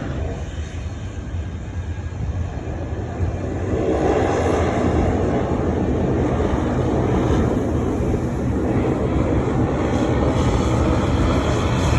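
Jet airliner engine noise, a steady rumbling rush that swells about three and a half seconds in and then holds.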